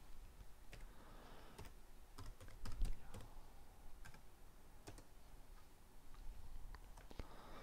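Faint computer keyboard keystrokes typed at an uneven pace, with a quicker run of strokes about two and a half seconds in.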